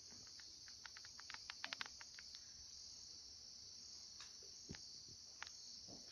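Faint steady chirring of crickets, with scattered soft clicks.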